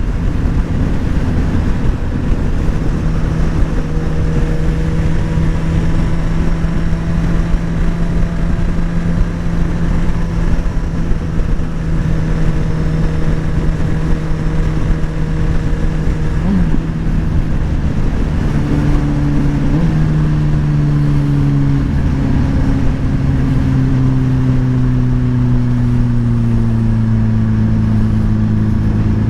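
Motorcycle engine running at a steady cruise under a constant rush of wind and road noise. The engine note steps a few times between about 17 and 20 seconds in, then falls steadily over the last several seconds as the bike slows.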